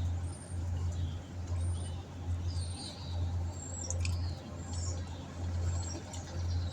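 A steady low hum that swells and fades about once a second, with several short, high bird chirps and a few faint clicks over it.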